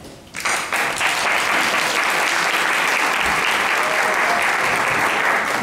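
Audience applauding, breaking out sharply about a third of a second in and holding steady.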